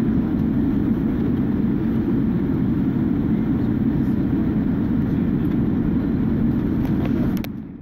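Steady low rumble of a jet airliner taxiing, heard from inside the cabin. It fades down near the end.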